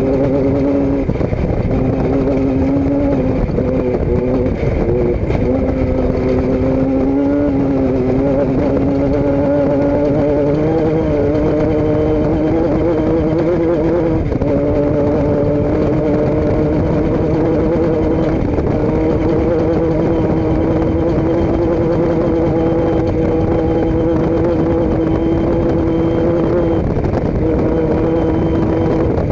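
A vehicle engine running steadily at cruising speed, its pitch drifting slightly up and down with the throttle and dropping a little about halfway through.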